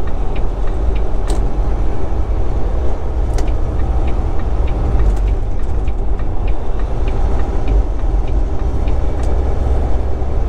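Steady low drone of a Volvo 780 semi-truck cruising at highway speed, heard from inside the cab: engine and road noise together, with a few faint light ticks now and then.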